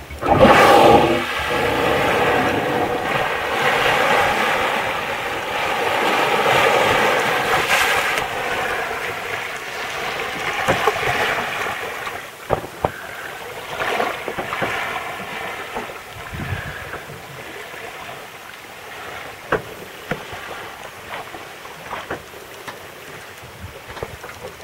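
Humpback whale surfacing close by and blowing, a loud exhale about half a second in. Then water rushing and lapping, fading to quieter water sounds with scattered small splashes and clicks from about halfway on.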